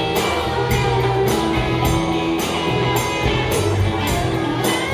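Live rock band playing, with electric guitars, a bass guitar and a drum kit; the drums keep a steady beat of about two cymbal strokes a second under sustained bass notes.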